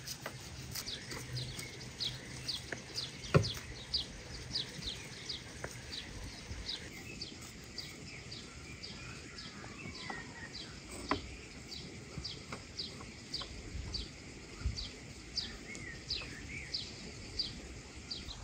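A bird calling over and over in a rapid series of short descending chirps, about three a second. A few sharp knocks, the loudest about three seconds in, come from the knife striking the wooden cutting board as meat is trimmed.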